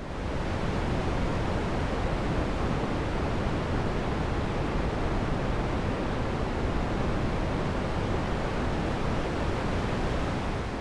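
Synthesized wind from a VCV Rack modular patch: white, pink and red noise through low-pass filters swept by a chaos source, with a touch of reverb. A steady rushing hiss that swells in over the first second and eases off near the end.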